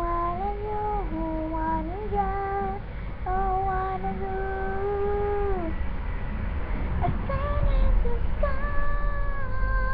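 A high voice singing long held notes, breaking off about six seconds in and starting again a little lower near the end, over a steady low rumble.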